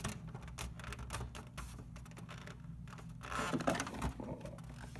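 Printer parts being handled and fitted back together: a scatter of small clicks and taps, with a denser scraping rustle about three and a half seconds in.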